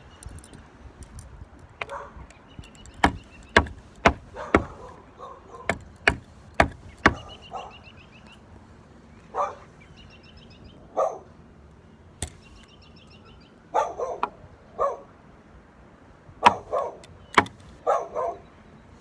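A series of sharp chopping knocks, most of them bunched together a few seconds in and a few more near the end, with a dog barking now and then in between.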